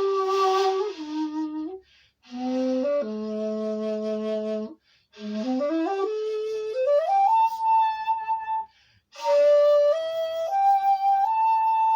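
Bamboo flute played solo: four phrases of long held notes separated by short pauses for breath, the third climbing in a long upward slide about six seconds in.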